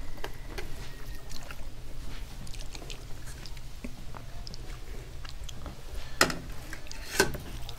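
Hand mixing rice and curry on a steel plate, with soft squishing and many small clicks, as curry is tipped from another steel plate onto the rice; two louder knocks come near the end, about a second apart. A steady low hum runs underneath.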